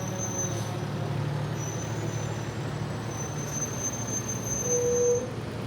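Fire truck's diesel engine running steadily with a low rumble and a faint high whine, and a short tone sounding briefly about five seconds in.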